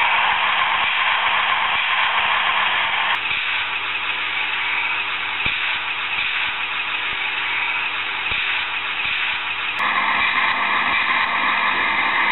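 Built-in sound module of a Viessmann HO-scale model track tamping machine playing its recorded diesel-engine and tamping-machinery sound through the model's small speaker. The sound is steady but changes abruptly about three seconds in and again near ten seconds, the middle stretch carrying a steady engine hum.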